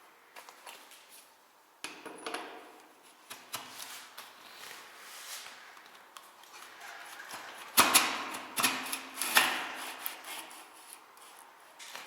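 Handling noises: scattered clicks, taps and rubbing, with a cluster of louder knocks about eight seconds in.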